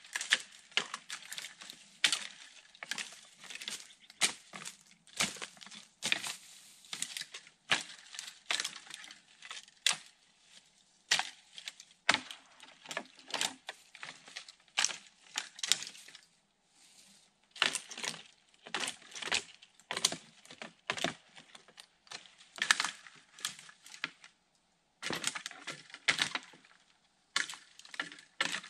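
Irregular crackling and snapping of dry brush and twigs, in uneven clusters of sharp snaps with short pauses between them.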